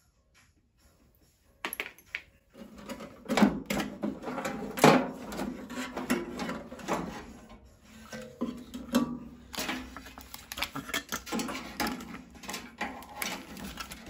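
Metal parts of a scrap microwave oven knocking and rattling as they are handled and pulled free, an irregular clatter of clicks and knocks starting about two seconds in.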